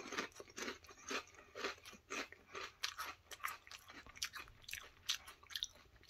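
A mouthful of ridged potato chips being chewed with the mouth closed: a soft, regular crunch about twice a second.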